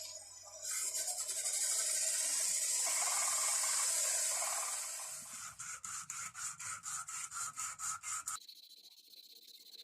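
Metal tools being scrubbed and abraded clean: a steady rasping hiss for several seconds, then rhythmic rubbing strokes about four a second, which stop abruptly a little over a second before the end and leave only a faint hiss.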